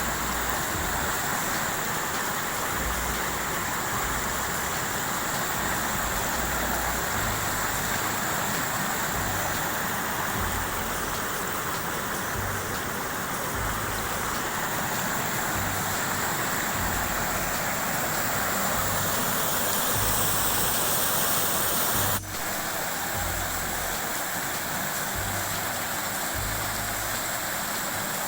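Waterfall rushing steadily, an even, unbroken noise of falling water. About three-quarters of the way through the sound drops for an instant and then carries on slightly changed.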